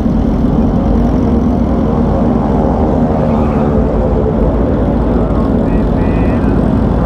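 Motorcycle engine idling steadily, its pitch wavering slightly over a low rumble.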